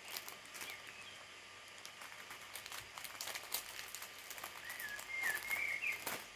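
Small plastic bags of nail gems and crystals being handled, with short crinkles and light clicks. A bird chirps faintly in the background a few times near the end.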